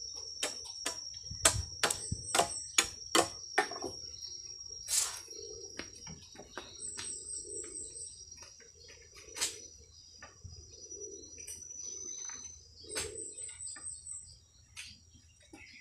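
A machete chops at a bamboo pole: about eight quick, sharp strikes in the first four seconds, then a few single knocks. Behind it, insects drone steadily in a high tone and doves coo again and again.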